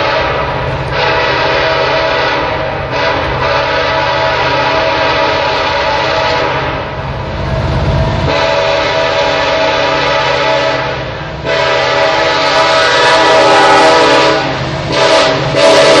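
Union Pacific locomotive's Nathan K5LLA five-chime air horn sounding a string of long blasts with brief breaks between them. It grows louder over the last few seconds as the train approaches the crossing.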